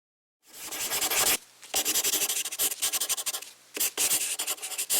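Scratchy rubbing noise in three stretches, broken by short pauses about a second in and near four seconds in.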